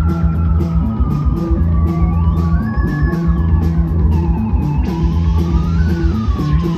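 Live psychedelic rock band playing an instrumental jam: drums keeping a steady cymbal rhythm over a held bass line, with a lead line gliding slowly up and down in pitch.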